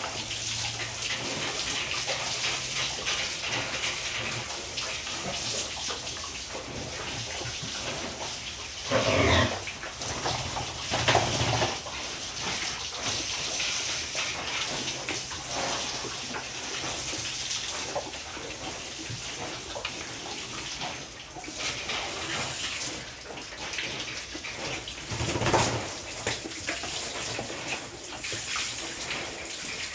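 Water spraying from a hose onto pigs and a wet concrete floor: a steady hiss and splash, broken by a few short, louder noises about nine, eleven and twenty-five seconds in.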